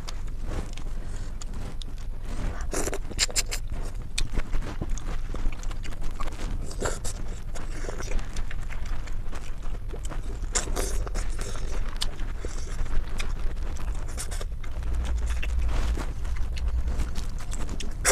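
Eating sounds from baby clams in Padang sauce and sweet corn: irregular scrapes, clicks and chewing over a steady low hum.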